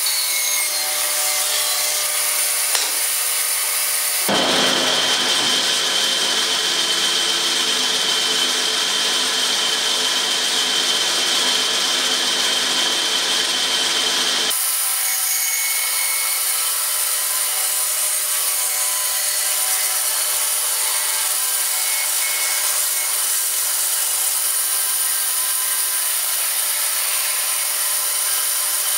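Band saw running and ripping a long wooden blank lengthwise, the blade cutting steadily through the wood. The sound changes abruptly about four seconds in, taking on a steady high whine, and changes back about halfway through.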